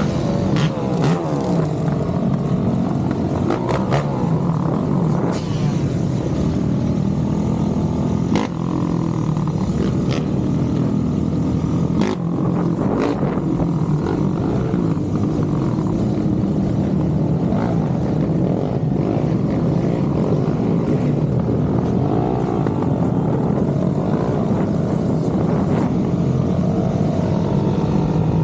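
Motorcycle engine running steadily for the whole stretch, its revs rising and falling, with a few sharp clicks.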